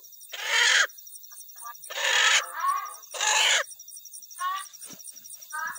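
Animal cries: three loud, harsh squawks about a second and a half apart, with shorter pitched calls between them, over a steady high chirping of insects.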